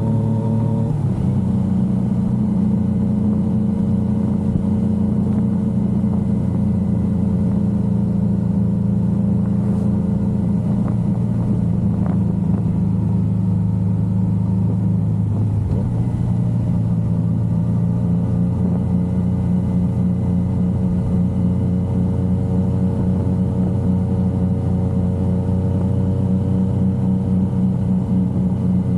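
Yamaha XSR900's inline three-cylinder engine running under way, a steady engine note whose pitch shifts slightly about a second in and again about halfway through.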